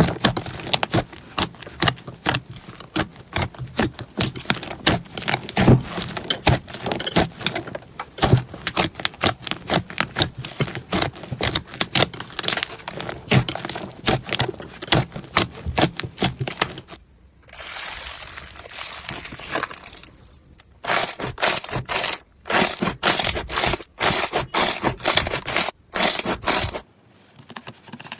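Slime being squeezed and poked by hand, a dense run of crackling clicks and pops. About two-thirds of the way in it turns to a softer hiss for a few seconds, then comes back as quick crackling bursts.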